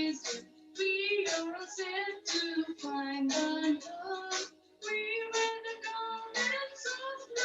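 Children singing an anthem together, a sung melody with held notes and short breaks between phrases.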